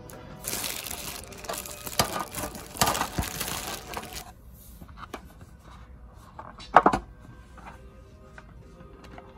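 Clear plastic packaging crinkling and rustling for about four seconds while metal pencil tins are handled, followed later by a single sharp knock.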